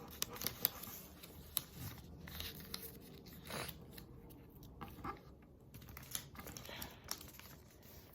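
A sheet of paper rustling and crinkling in the hands as it is folded over and creased, with scattered short crackles.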